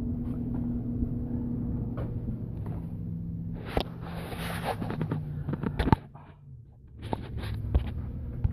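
A few sharp clicks and a brief rustle of hands working plastic washing-machine parts over a steady low hum.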